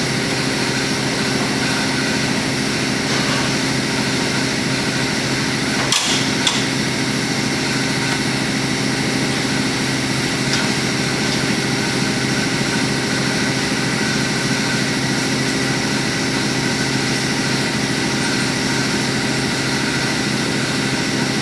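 Steady mechanical hum of a running machine, like a shop fan or air handler, holding several fixed pitches. Two short knocks about six seconds in, from pin or tool work on the dump's steel frame.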